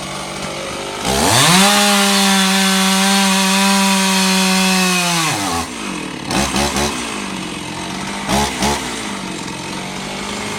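Gasoline chainsaw cutting a fallen tree limb. It revs up to full speed about a second in and holds there for about four seconds, drops back to idle, and gets two short blips of throttle before idling on.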